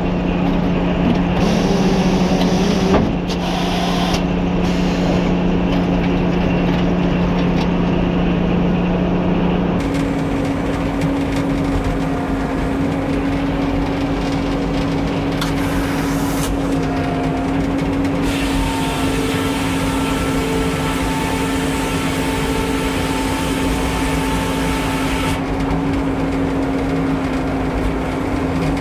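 Old Frick sawmill running, a loud steady machine drone whose pitch steps up about ten seconds in.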